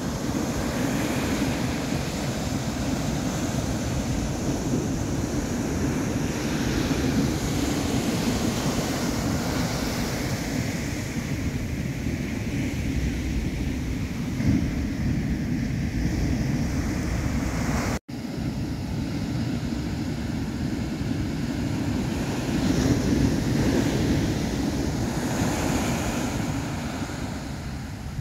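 Ocean surf breaking and washing up a sandy beach, a steady rushing wash that swells and eases, with wind buffeting the microphone.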